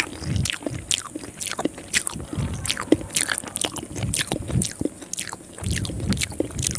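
Close-miked wet eating sounds from a person eating soft rice noodles with their fingers: a quick run of lip smacks and squishy chewing, several short smacks a second.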